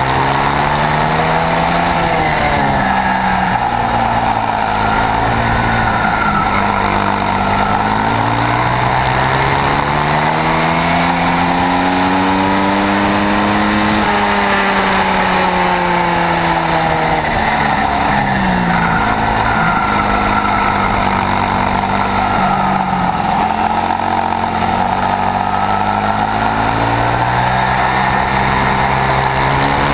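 Swissauto 250 twin-cylinder four-stroke shifter-kart engine at racing speed, heard onboard. Its pitch climbs under acceleration, longest in the middle, and drops sharply several times as the driver lifts off for corners.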